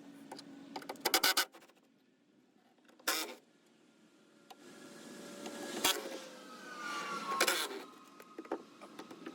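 A passing vehicle, its sound swelling and then falling in pitch as it goes by. Short clattering clicks about a second in and again about three seconds in.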